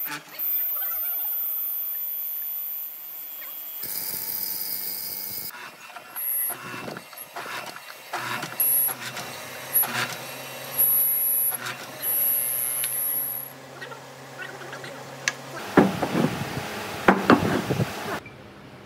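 Hollow-chisel mortiser cutting a square mortise in a hardwood rail: the motor runs while the auger bores and the square chisel is plunged in, with intermittent high-pitched squeals and sharp knocks. A cluster of louder knocks comes near the end.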